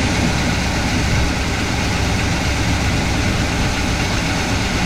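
V8 truck engine idling loudly and steadily. The owner hears it running with a miss and suspects a weak ignition coil.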